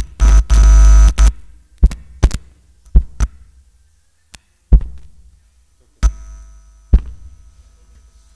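A harsh, distorted burst lasting about a second, then about seven heavy thumps at irregular intervals, each dying away quickly.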